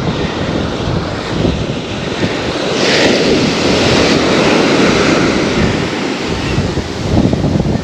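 Wind buffeting the microphone over the steady rush of ocean surf on a beach, with a louder hissing surge about three seconds in.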